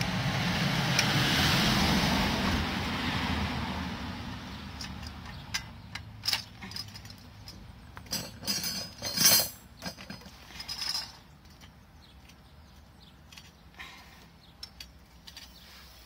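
Metal clinks and knocks as the sections of a metal bird-feeder pole are fitted together, the sharpest knock about nine seconds in. Over the first few seconds a rushing noise swells and then fades away.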